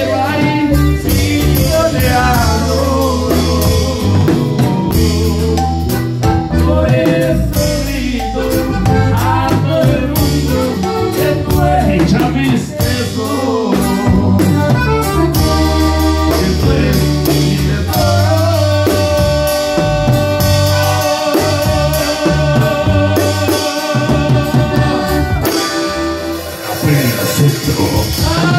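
Accordion-led band music with bass and drums. About two-thirds of the way through, the accordion holds a long chord for several seconds.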